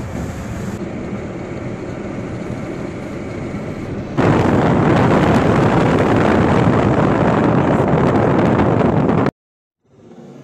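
Steady road noise inside a moving car. About four seconds in it jumps to a much louder rush of wind and traffic noise at an open side window, then cuts off suddenly. Fainter cabin road noise returns near the end.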